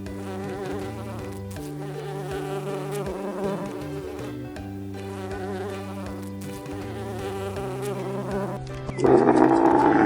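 Steady buzzing of a flying insect such as a fly or bee. About nine seconds in, a much louder animal roar lasts just over a second.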